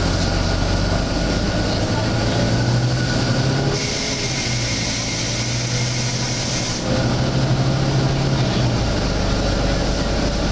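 Volvo B9TL double-decker bus running, its six-cylinder diesel giving a steady low drone. About four seconds in, a strange hiss starts, lasts about three seconds and cuts off sharply.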